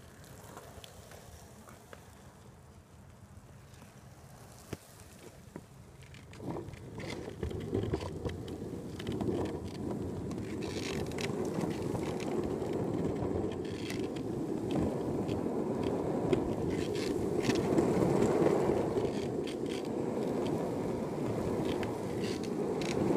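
Skateboard wheels rolling on asphalt: a gritty rumble that starts about six seconds in and grows louder as the board picks up speed, with occasional clicks and knocks from the pavement.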